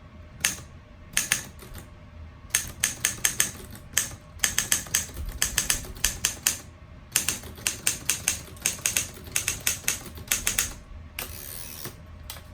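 Keys of a 1947 Underwood SS full-size desktop typewriter being typed in quick runs of sharp strikes, with short pauses between runs. A brief rasping noise follows near the end.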